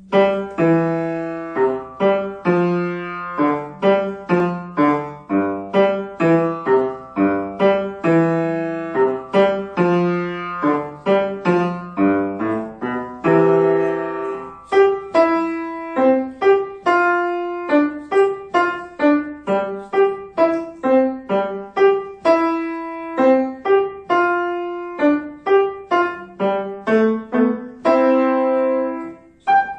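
Grand piano played solo by a young child: a steady run of single struck notes, each ringing and fading, with a held chord about halfway through before the notes move on.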